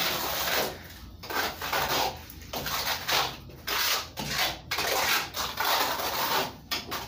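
Plastering trowel scraping wet cement plaster across a concrete block wall, in a series of rough strokes roughly one a second.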